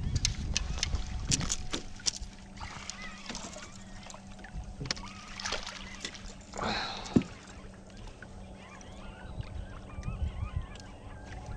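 Scattered knocks and clicks of handling in a small fishing boat, over a steady low motor hum, with a louder rush and a sharp knock about seven seconds in. Faint wavering bird calls come in twice.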